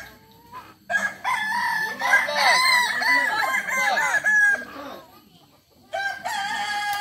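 Several Kukuak Balenggek roosters crowing over one another: long crows broken into many short rising-and-falling notes. There is a brief lull before the crowing starts again near the end.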